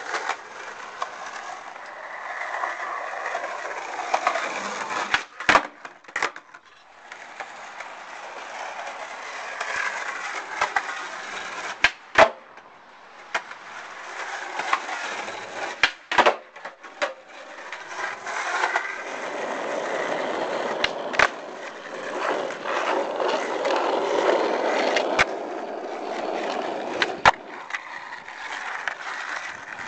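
Skateboard wheels rolling over concrete and asphalt, with sharp clacks of the board striking the ground every few seconds, several coming in quick pairs like a pop and its landing.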